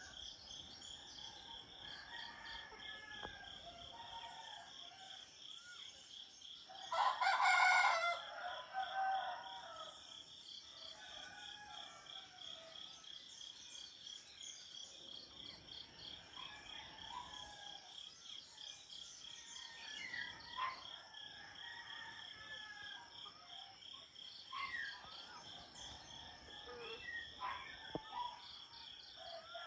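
A rooster crows once, loudly, about seven seconds in, over a steady, rapidly pulsing chorus of insects and scattered short bird calls.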